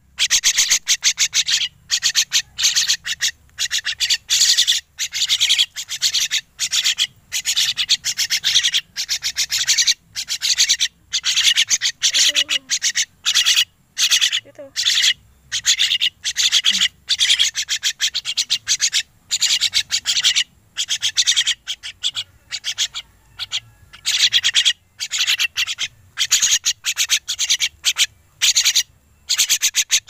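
Young crested mynas (Martinez birds) giving harsh, raspy begging calls for food, in quick bursts one after another with only brief gaps.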